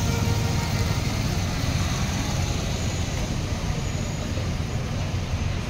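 Road traffic on a town street: vans and motorbikes driving past with their engines running, heard as a steady, noisy rumble.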